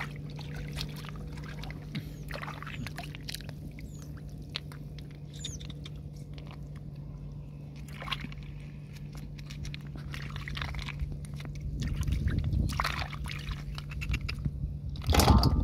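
Hands groping and dabbling in shallow muddy water, with small splashes, trickles and scattered clicks, busier toward the end and with a louder burst near the very end. A steady low hum runs underneath until then.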